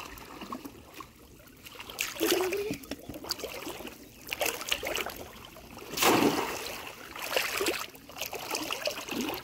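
Splashing and sloshing of shallow muddy water as a man wades and works a bamboo polo basket trap, groping under it for fish. The water noise comes in irregular surges, the biggest splash about six seconds in.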